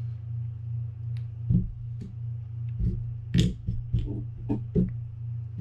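Handling noise from a Quantum Catalyst spinning reel being taken apart: a string of light clicks and knocks of the metal reel and its parts, the loudest about three and a half seconds in, over a steady low hum.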